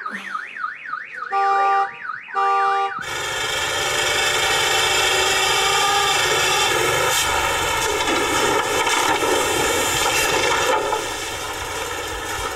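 A pickup truck's car alarm sounding, a rapid rising-and-falling siren broken by two steady horn blasts, cut off suddenly about three seconds in. Then an old dump truck's engine runs steadily as its bed is raised and the truck tips up backward, getting quieter near the end.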